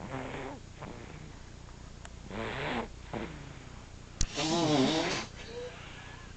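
Snoring: three snores about two seconds apart, each a rattling, buzzing breath, the third the longest and loudest. A sharp click comes just before the third snore.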